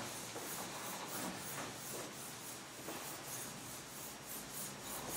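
Chalkboard eraser wiping across a chalkboard: a scratchy rubbing in repeated back-and-forth strokes, about two or three a second.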